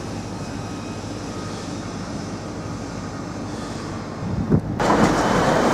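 Steady rumble of city street traffic. About four and a half seconds in, a much louder rushing noise sets in abruptly and holds.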